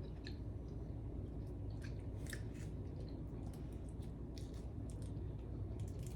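A person chewing and biting on hard candy close to the microphone: faint, irregular mouth clicks and small crunches over a steady low room hum.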